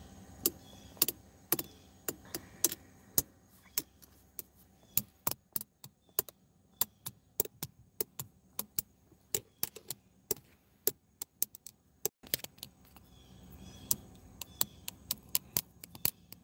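Irregular sharp clicks and taps close to the microphone, about two or three a second and fewer for a while in the middle, over a faint steady car-interior hum.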